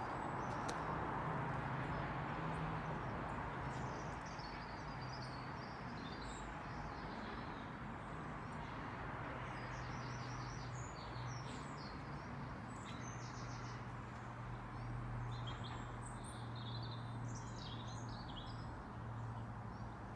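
Small birds chirping on and off over a steady outdoor background hum.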